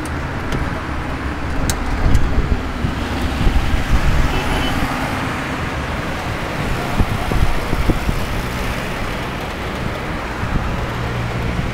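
Steady low engine drone and road noise heard from aboard a moving tourist train, with street traffic around it.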